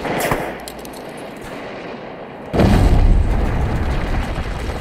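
Battle sound effects: a sharp blast at the start with a few scattered shots after it, then about two and a half seconds in a big explosion whose deep rumble fades away slowly.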